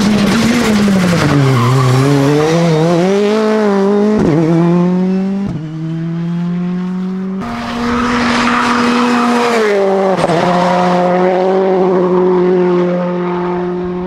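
Citroën C3 Rally2's 1.6-litre turbocharged four-cylinder engine driven hard on a rally stage. Its pitch dips and climbs, with two sudden drops as it shifts up through the gears. After an abrupt cut, a second pass holds a high note, then falls about three seconds later and runs on steadily.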